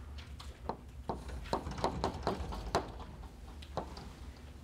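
Chalk on a blackboard: a string of irregular short taps and scrapes as lines are drawn, over a steady low room hum.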